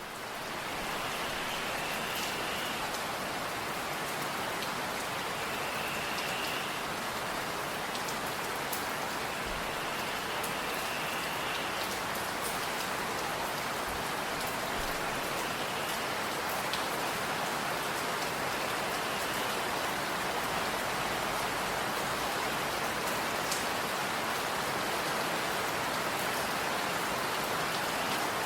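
Steady rain falling in a forest, an even hiss with scattered sharper taps of single drops.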